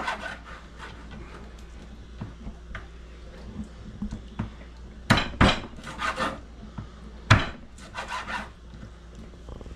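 Kitchen knife cutting raw chicken neck on a wooden cutting board: soft scraping and small taps, then from about five seconds in a run of sharper knocks as the blade chops through onto the wood.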